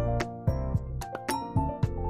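Background music with a steady beat: bass notes and held melodic tones under regular percussive hits about twice a second.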